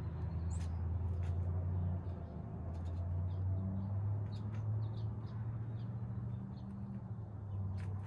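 A low steady rumble, with faint short bird chirps and a few light ticks scattered over it.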